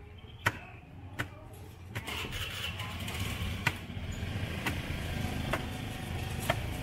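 Sharp knocks repeating about once a second over a steady low rumble of street noise, which grows louder about two seconds in.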